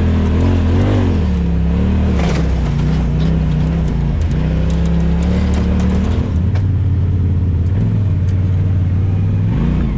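An off-road vehicle's engine running under way, its pitch rising and falling with the throttle over the first couple of seconds, holding fairly steady through the middle, and climbing again near the end.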